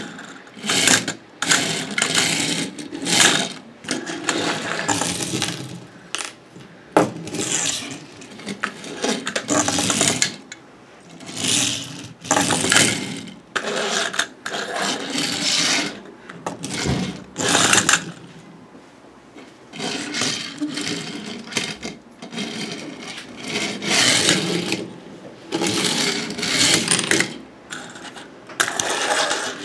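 Plastic toy airport pieces and toy planes being handled, with irregular clattering, rattling and scraping in short bursts.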